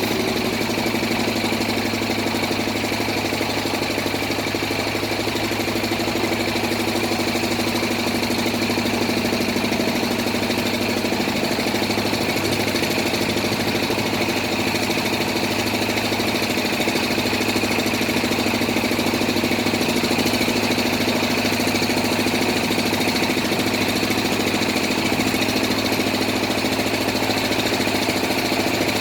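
Engine of a bored-pile drilling rig running steadily at constant speed, with no revving.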